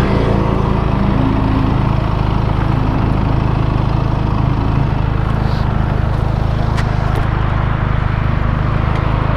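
Benelli 302S's 300 cc parallel-twin engine running steadily through the stock exhaust while the bike is ridden, a steady drone over a rush of broad noise.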